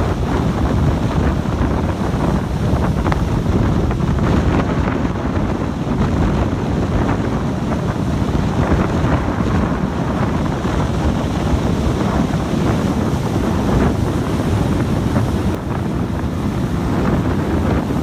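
Loud, steady wind buffeting a phone microphone on a speeding boat, drowning out everything else.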